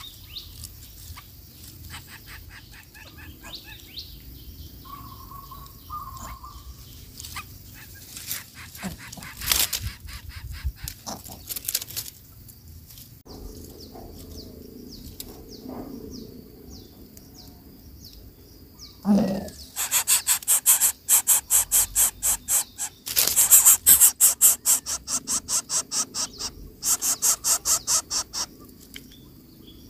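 Greater coucal nestlings begging at the nest as the adult comes to feed them: shrill, rapid pulsed calls at several a second, in three loud bursts in the second half, after quieter scattered bird calls.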